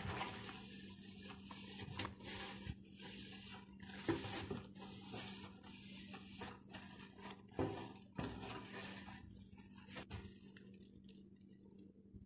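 Paper towel wiping dust off the bottom of an emptied drawer: repeated rubbing strokes that die away after about ten seconds, over a faint steady hum.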